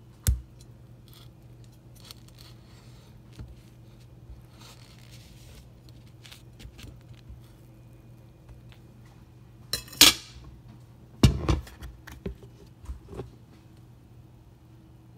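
Butter knife clinking and scraping against a ceramic plate while peanut butter is spread on bread. There are scattered sharp clicks, the loudest about ten seconds in and a cluster just after, over a steady low hum.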